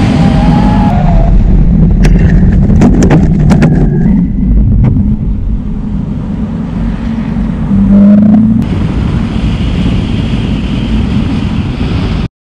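Car driving fast on a race track, heard through a camera mounted low on the outside of the car: engine, tyre and wind noise. The rushing noise eases about a second in, a run of sharp clicks or cracks follows, there is a brief rev near 8 s, and the sound cuts off abruptly near the end.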